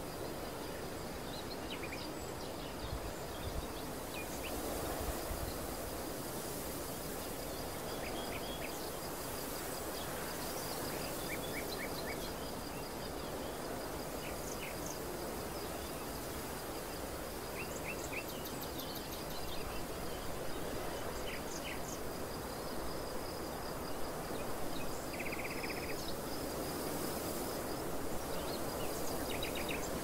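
Wind blowing through a barley field: a steady rushing with occasional low buffeting gusts on the microphone. Small birds chirp now and then over a faint, continuous high-pitched trill.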